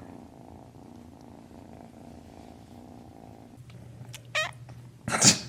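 A kitten purring steadily for about three and a half seconds, then the purr stops. Near the end come a short high sound and a louder brief one.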